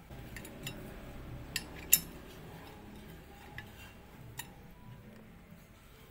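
Small metallic clicks and clinks of chrome bicycle parts being handled as a clamp-on fitting is worked onto a handlebar. A few scattered taps, the loudest a pair close together about two seconds in.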